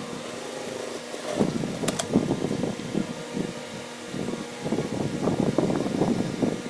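Cotton shirt fabric rustling and brushing as a sleeve and cuff are handled and turned, over a faint steady hum, with one sharp click about two seconds in.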